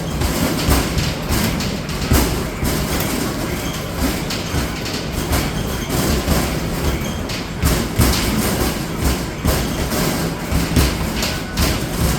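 Basketballs thudding over and over against the backboard and rim of an arcade basketball machine, in quick, irregular succession, over a constant din of arcade machines.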